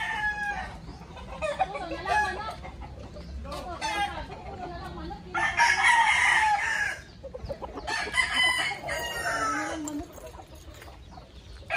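Gamecocks crowing and clucking. The loudest crow comes about halfway through and lasts over a second, with another burst of calls shortly after.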